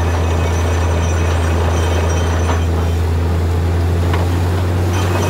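Truck-mounted borewell drilling rig running steadily: a loud, constant low drone from its engine and air compressor, with the hiss and splatter of compressed air blowing mud and rock cuttings out of the borehole.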